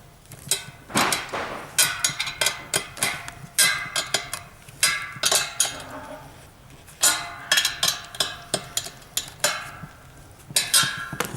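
Steel spanner clinking against nuts and a metal mounting bracket as the 13 mm nuts of a satellite-dish pole-mount kit are tightened: a string of irregular sharp metallic clicks, some ringing briefly.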